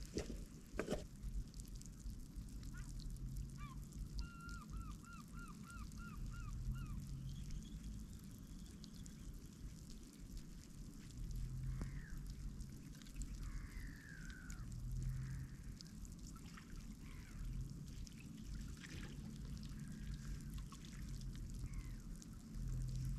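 Wild estuary birds calling: a quick run of about eight repeated notes a few seconds in, then several separate falling calls later, over a steady low rumble.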